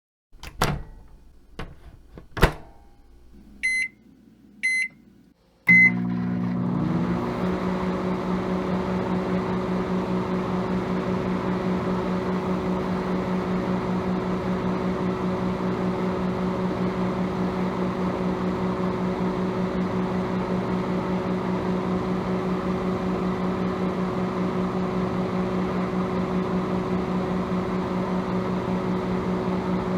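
Microwave oven: its door clicks three times as it is opened and shut, then three short keypad beeps. The oven then starts and runs with a steady hum, one tone rising and settling over the first second as the fan and turntable motor come up to speed.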